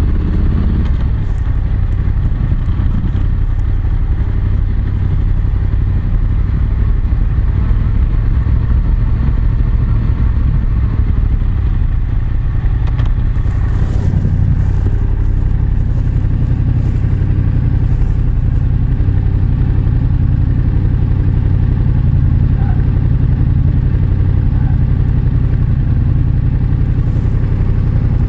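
Yamaha MT-07's parallel-twin engine, fitted with an SP Tadao Power Box full exhaust system, running at low, steady revs without revving up. The exhaust note is picked up through a lapel mic in the rider's back jeans pocket, with scattered rustling from the jeans' coated fabric.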